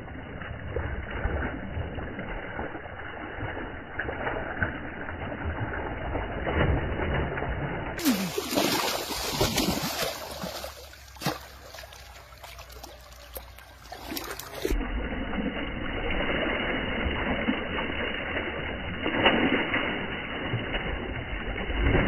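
Shallow river water splashing and sloshing around someone wading and jabbing a bamboo fishing spear into it.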